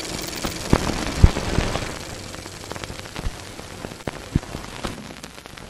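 Logo-intro sound effect: a crackling hiss like static, with scattered sharp pops and clicks, the loudest about a second in, slowly fading away.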